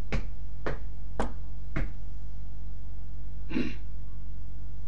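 Steady electrical hum, with a run of sharp taps about two a second that stops about two seconds in, and one softer brushing noise near the end.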